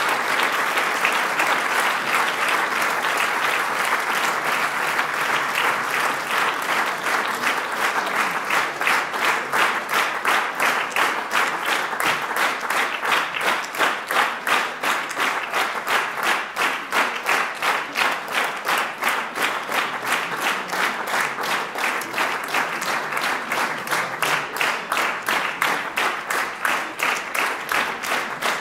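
An audience applauding in a hall. About eight seconds in, the scattered clapping falls into rhythmic clapping in unison, roughly three claps a second.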